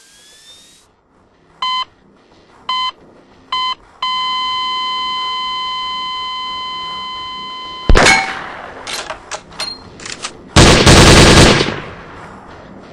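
Electronic countdown signal: three short beeps about a second apart, then one long beep of about four seconds. It ends with a sudden loud crack and a few scattered clicks, then a burst of rapid automatic airsoft gunfire lasting about a second.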